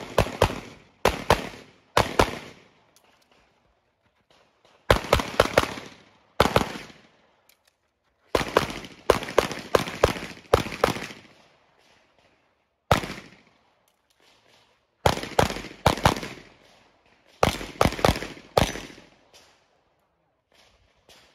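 Pistol shots fired in fast strings of two to four, with pauses of about one to two and a half seconds between strings as the shooter moves through an IPSC stage.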